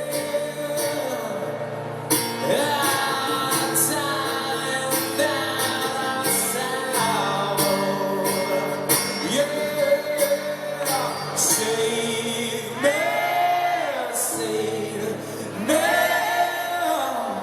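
Live acoustic band performance: a voice singing long, sliding notes over acoustic guitar accompaniment.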